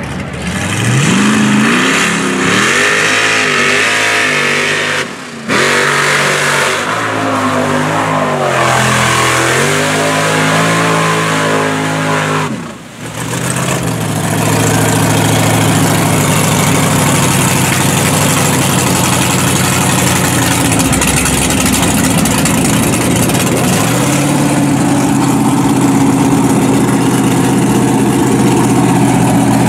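Mud truck on tractor tires, a lifted Chevrolet pickup, its engine revving up and down repeatedly. Then it runs at steady high revs under load as the tires churn through the mud pit.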